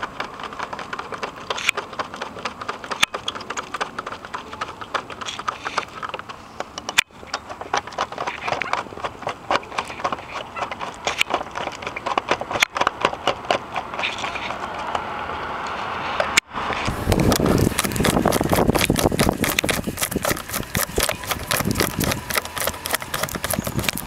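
Rapid, continuous clicking of a screwdriver turning the screws of a plastic engine air filter housing. It stops abruptly several times and is louder from about two-thirds of the way through.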